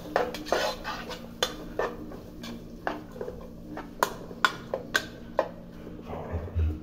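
A cooking utensil knocking and scraping against a frying pan as chopped onion, garlic and chile are stirred in oil. The sharp, irregular knocks come about two a second.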